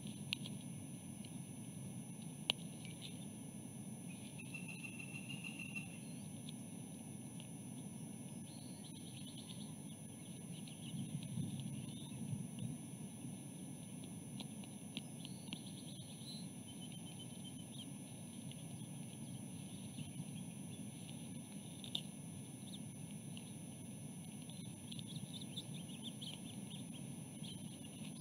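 Faint outdoor ambience with scattered short bird chirps and trills. Under it runs a low steady wind rumble and a few thin, steady high-pitched tones.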